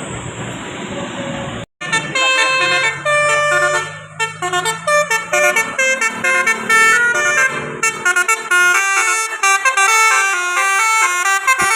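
A bus's telolet basuri musical horn playing a quick tune of stepped notes. It follows a second and a half or so of steady traffic noise that cuts off sharply, with a low engine hum under the first part of the tune.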